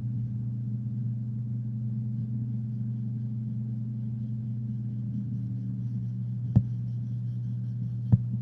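A steady low hum with two sharp clicks, the second near the end.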